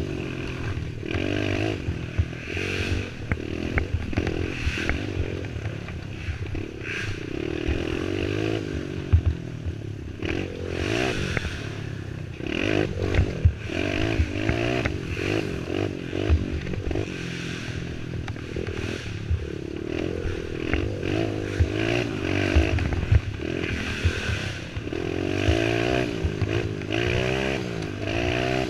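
Youth racing quad's engine revving up and down again and again as it is ridden hard over a rough trail, with frequent sharp knocks and rattles from the machine bouncing over bumps.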